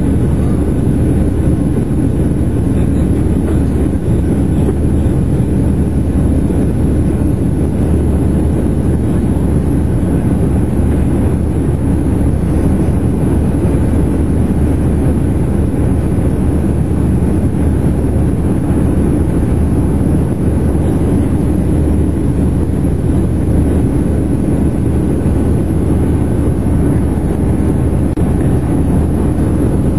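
Boeing 737-700 cabin noise in flight after takeoff, heard from a window seat over the wing: the CFM56-7 turbofan engines and rushing air make a loud, steady, deep rumble that does not change.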